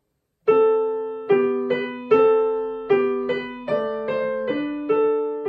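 Yamaha acoustic piano playing a short passage of two-note chords with both hands, the right-hand melody voiced to ring out over the left as a balance exercise. There are about ten chords at a moderate, even pace, starting about half a second in, with the last chord left ringing.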